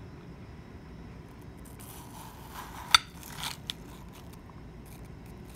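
Metal spoon scooping and scraping through the chilled flesh of a halved watermelon, starting about two seconds in. A sharp click about three seconds in is the loudest sound, and a smaller click follows shortly after.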